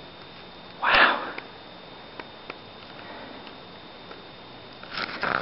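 A person sniffing sharply through the nose about a second in, then a shorter double sniff near the end, with a few faint clicks in between.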